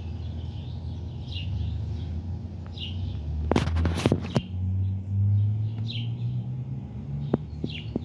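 Small birds chirping, short falling chirps every second or so, over a steady low mechanical hum that rises in pitch past the middle. A brief cluster of sharp clicks and rustling, the loudest sound, comes about halfway through.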